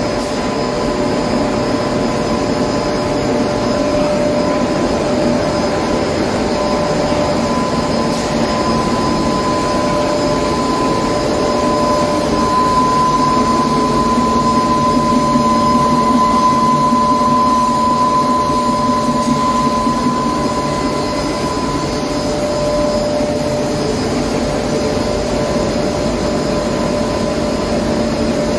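Super-fine soybean powder grinding machine running steadily: an even mechanical whir with a steady high whine that grows a little louder in the middle.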